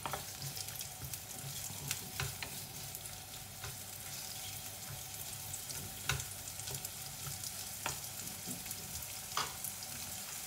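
Sliced onions sizzling as they fry in hot oil in a frying pan, stirred with a wooden spatula that now and then knocks against the pan.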